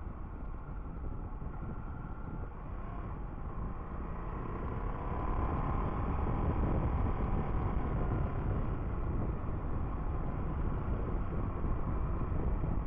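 A motorcycle being ridden at speed: a steady rush of wind on the microphone with the bike's engine running underneath. About five seconds in the sound gets louder, and a faint engine note rises and falls.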